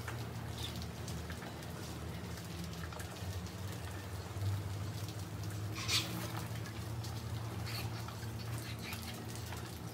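A crowd of mice scuffling and scrabbling in a heap, a light patter of scratches and small clicks with one sharper click about six seconds in, over a steady low hum.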